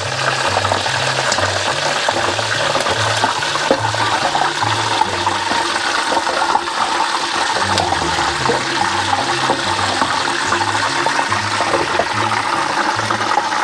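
Starch-coated river fish deep-frying in a pot of hot oil under a glass lid: a steady, loud sizzle and crackle of vigorously bubbling oil.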